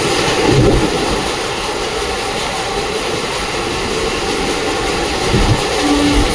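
ICF passenger train running at speed: a steady rush of air and wheel-on-rail rumble from the moving coach.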